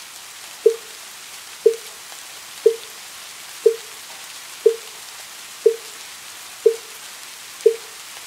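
Wooden fish (muyu), the Buddhist wooden percussion instrument, struck in an even rhythm of one short, quickly fading knock per second, eight strikes, over a steady patter of rain.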